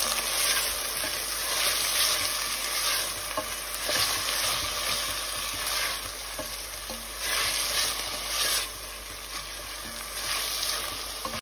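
Chopped onions sizzling in hot oil in a stainless steel pot while being stirred with a wooden spoon; the sizzle rises and falls several times.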